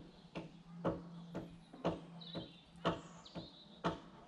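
Steady hammering on timber, about two blows a second, with birds chirping briefly near the middle.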